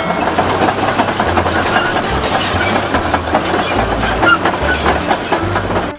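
Caterpillar D10T crawler bulldozer on the move: its diesel engine runs steadily under the dense clanking clatter of its steel tracks.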